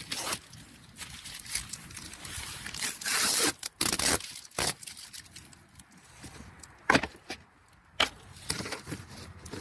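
Cardboard shipping box and its plastic packing strap being handled: irregular scrapes, rubs and knocks, loudest about three seconds in.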